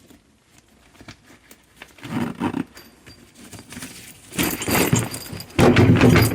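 Tools and a packed tool bag being handled: a few small clicks, then bursts of rustling and knocking, the loudest near the end.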